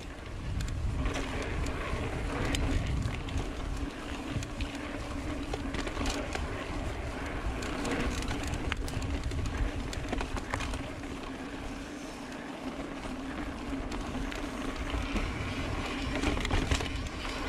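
Mountain bike riding along a dirt singletrack, heard from a camera on the bike: a low rumble of wind and tyres over dirt and rock, with scattered clicks and rattles from the bike and a steady hum.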